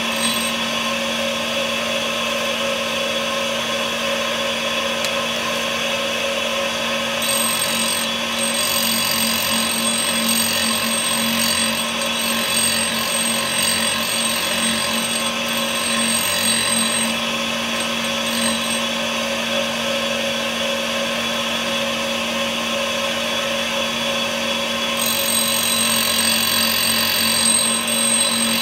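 Homemade tool grinder running with a 100 mm, 180-grit diamond cup wheel, grinding the cutting edges of a countersink held in a collet: a steady motor hum with a whine. A thin high whistle comes in about seven seconds in, drops out again, and returns near the end.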